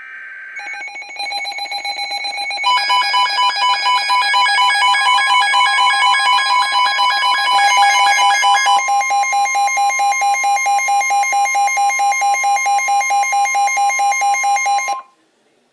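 Emergency Alert System warning audio: the tail of a SAME data burst, then a loud alert tone of several stacked pitches pulsing rapidly on and off, thickening over the first few seconds and changing its pattern about nine seconds in, before cutting off sharply near the end.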